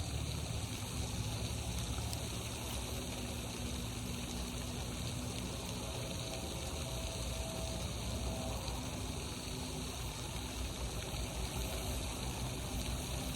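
Pond fountain spraying and splashing, a steady rushing water noise, with a faint hum in the middle of the stretch.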